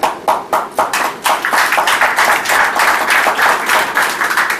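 Audience clapping: a few separate claps at first, thickening after about a second into steady applause that dies away at the very end.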